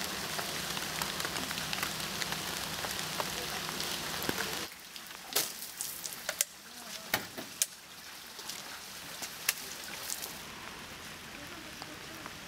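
Rain: a steady hiss for the first few seconds that cuts off suddenly, then a quieter wet outdoor ambience with scattered sharp drips and taps.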